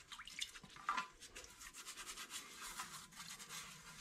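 Faint rubbing on a wet car sheet-metal panel fresh from a citric-acid bath, a run of quick, irregular strokes.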